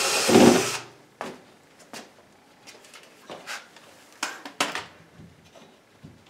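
Cordless drill running as it backs a screw out of a wooden kitchen cabinet, stopping under a second in. Then a few short knocks and clunks against the cabinet's wood frame, the loudest a pair about four and a half seconds in.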